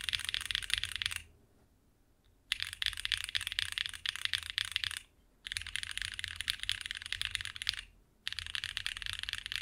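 Fast typing on a mechanical keyboard with tactile switches, in bursts of about two and a half seconds separated by short silent pauses. These are back-to-back sound clips comparing Gateron Weightlessness tactile switches with MX Brown and High C Orange tactile switches.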